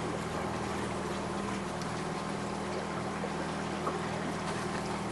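A small boat's outboard motor running at a steady speed, giving an even hum with no change in pitch.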